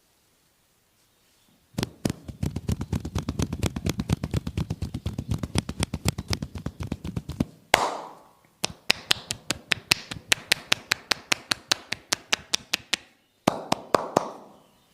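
Rapid rhythmic hand percussion of a massage, palms and fingers striking the body about eight times a second in two long runs. There is one louder, hollow-sounding clap just before the second run, and a short burst of strikes near the end.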